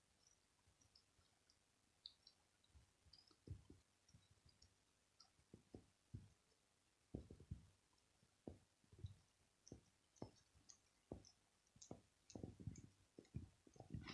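Faint clicks and soft taps of a cat licking its fur while grooming, sparse at first, then coming about twice a second through the second half.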